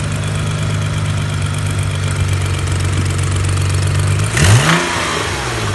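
BMW N55 turbocharged inline-six idling just after starting, blipped once briefly about four and a half seconds in and settling back to idle. The engine is being recorded for a knocking noise.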